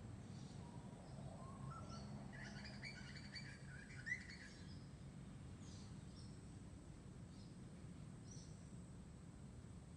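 Birds calling faintly over a steady low background hum, with a busier stretch of chirping in the middle and a single sharp click about four seconds in.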